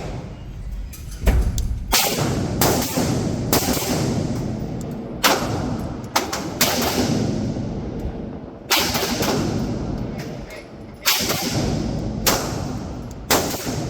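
Gunfire: about a dozen separate sharp shots at uneven intervals, each with a short echoing tail.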